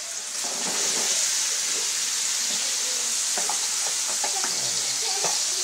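Chopped vegetables for pinakbet (squash, string beans, okra, bitter melon) tipped into a hot oiled steel wok, setting off a steady sizzle that swells about half a second in. A few short knocks of tongs stirring against the wok come in the second half.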